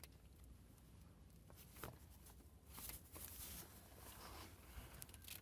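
Near silence: faint rustling and a light click or two as a hand works at a stuck spin-on oil filter under a pickup, trying to twist it loose.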